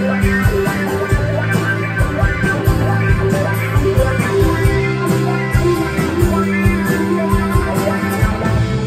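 Live rock band playing an instrumental passage: a Stratocaster-style electric guitar and bass guitar over a steady drum beat.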